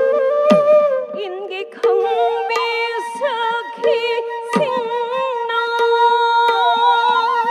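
Live Manipuri classical music for the Ras dance: a woman sings a wavering, ornamented melody over a steady drone, with a few sharp drum strokes and cymbal clashes.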